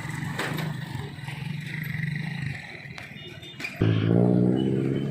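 Street traffic: a vehicle engine hums low and steady. Near the end, a much louder engine drone starts suddenly and holds a steady pitch.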